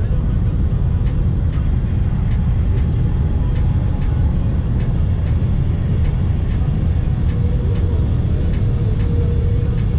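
Steady road and tyre noise heard from inside a car cruising at highway speed: a heavy, even low rumble with faint ticks at a regular pace.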